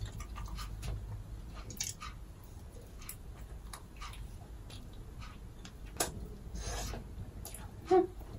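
Close-up eating sounds from pizza being chewed: soft smacks, small clicks and rustles, with a sharper click about six seconds in and a brief pitched sound just before the end.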